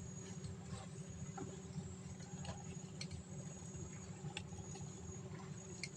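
Insects chirping in a thin, high, steady tone that stops and starts in stretches lasting a second or so, over a low hum, with scattered faint clicks.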